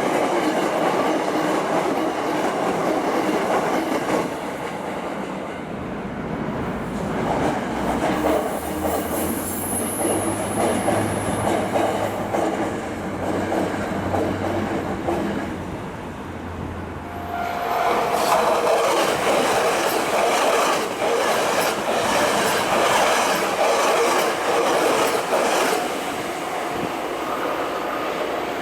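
Hankyu Kyoto Line electric trains passing at close range, with a steady rumble of wheels on the rails. About two-thirds of the way through a louder pass begins, the wheels clicking rapidly over the rail joints.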